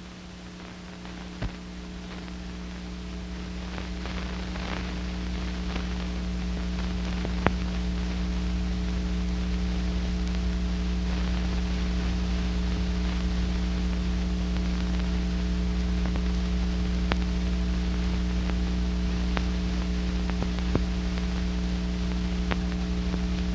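Steady hiss and mains-type electrical hum from an old film soundtrack, with a few faint clicks. It swells over the first several seconds, then holds steady. No narration.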